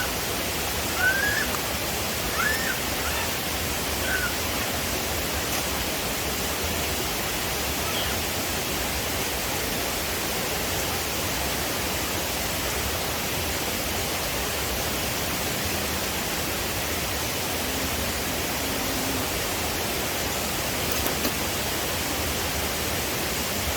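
A steady, even rushing noise with no change in level, with a few faint short chirps in the first few seconds.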